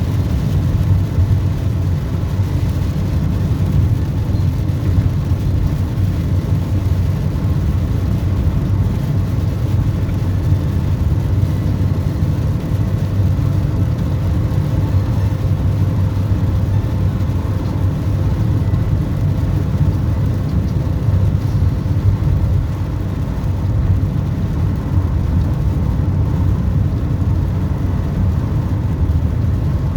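Vehicle driving: a steady low engine and road rumble with a faint constant whine.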